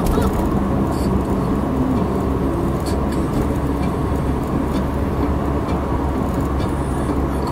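Steady in-cabin road and tyre noise with a low engine hum from a Honda Civic cruising at about 70–75 km/h.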